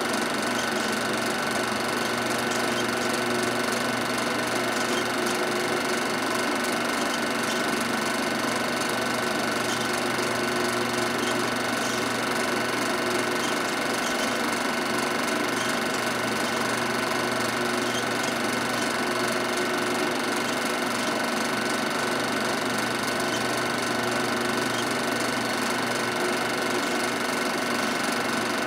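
Film projector running: a steady mechanical whirr with a fast, even clatter.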